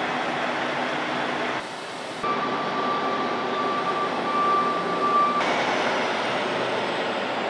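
Arena crowd noise, cut between edited shots, with a steady single-pitched tone lasting about three seconds in the middle.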